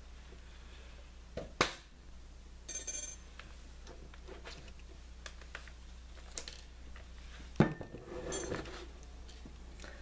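Small laptop screws clinking as they are shaken out of a tipped-over laptop's bottom case: a few light metallic clinks and ticks, some with a brief high ring. One sharp knock comes late on, over a steady low hum.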